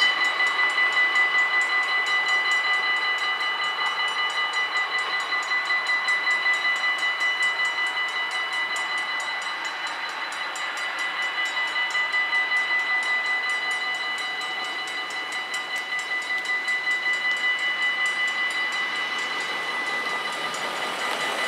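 Mechanical warning bells of a Dutch automatic half-barrier level crossing ringing continuously in fast, even strokes, signalling an approaching train. Near the end an arriving train joins in.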